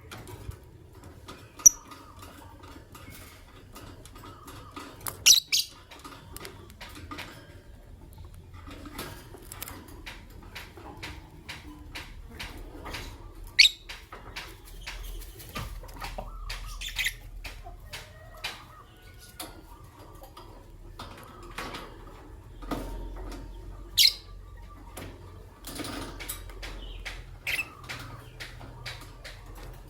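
Masked lovebird and albino lovebird giving short, sharp, high chirps every few seconds over a steady stream of light clicks and rustling.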